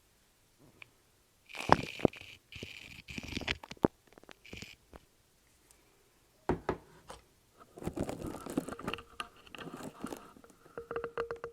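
Close-miked crackling, scraping and clicking handling sounds in irregular bursts, with short quiet gaps between them.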